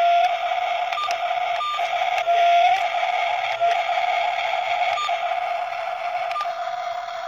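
Remote-control toy excavator's electric motors running, a steady whine with short clicks every second or so.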